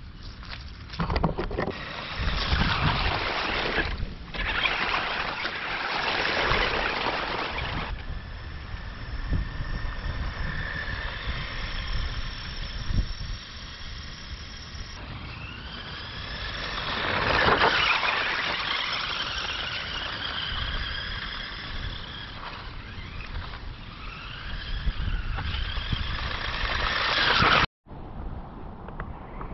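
Bwine C11 1:10-scale RC truck's dual electric motors whining, rising and falling in pitch as it speeds up and slows down, loudest about two-thirds of the way through. The first several seconds are mostly water splashing and tyre noise on wet gravel, and the sound cuts out briefly near the end.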